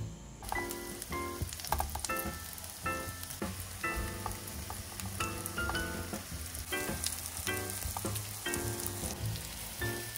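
Eggplant meatballs frying in oil in a pan: a steady sizzle that starts about half a second in, with background music over it.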